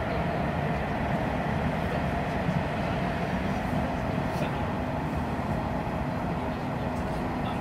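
Nishitetsu electric express train running at speed, heard from inside the passenger car: a steady rumble of wheels on rail with a faint steady hum.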